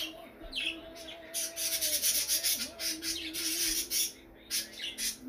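Glitter being shaken out of a small plastic tube onto a plate of foam beads: a rapid, hissy rattle that starts about a second in and stops about four and a half seconds in.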